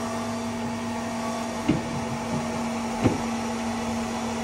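Antminer bitcoin mining machines running, their cooling fans making a steady whirring hum with a held tone. Two short knocks, about a second and a half and three seconds in, as the plastic ice-cooler lid is fitted over them.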